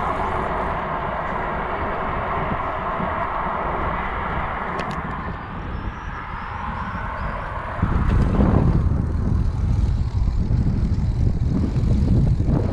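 Riding noise picked up by a camera mounted on a moving touring bicycle: tyre and road noise with a steady hum that fades out around five seconds in. From about eight seconds in, a louder, gusty rumble of wind on the microphone takes over.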